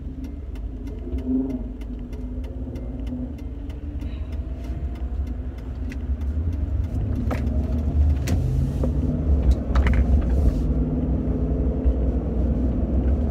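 Car engine and road noise heard from inside the cabin while driving, growing louder as the car picks up speed, with a fast run of light, regular ticks over the first several seconds.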